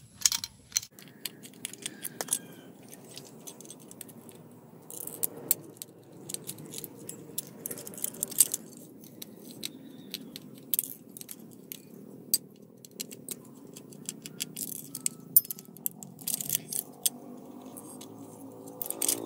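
Irregular sharp metallic clicks, ticks and scrapes of a small precision screwdriver working the screws and head-actuator parts of an opened hard drive, with small metal parts clinking.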